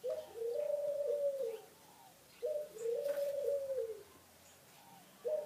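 A dove cooing in the background: a short note and then a longer wavering coo, repeated about every two and a half seconds.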